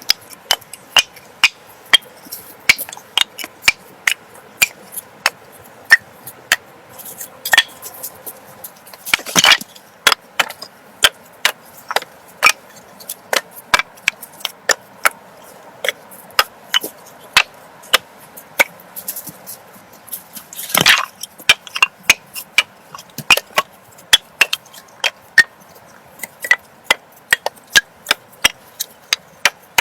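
Hand-tool work on wood: a fast, irregular run of sharp knocks, about two to three a second, with two heavier, louder blows about a third and two thirds of the way through.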